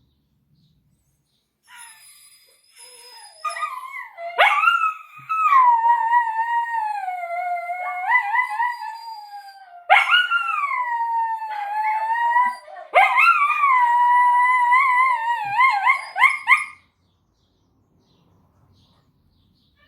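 Small pet dog howling and whining in long, wavering cries that slide up and fall away, starting about two seconds in and stopping suddenly near the end. It is the distressed crying of a dog left alone without its owner saying goodbye.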